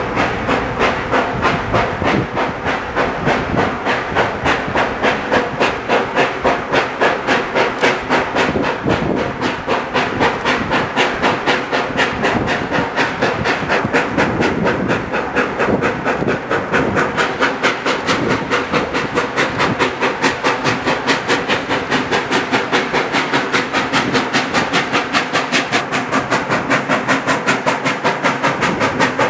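Steam locomotive working hard, its exhaust chuffing in a fast, steady beat with a hiss of steam.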